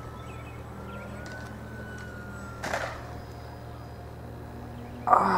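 Distant whine of an RC plane's electric motor and propeller overhead, its pitch rising slightly then sinking slowly as the plane flies by. A short bump about halfway through.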